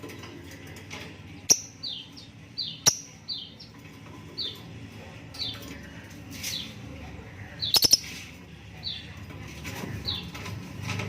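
Lovebirds chirping: about a dozen short, high chirps that fall in pitch, repeated every half-second to second, with a few sharp clicks and a quick rattle of clicks about two-thirds of the way through.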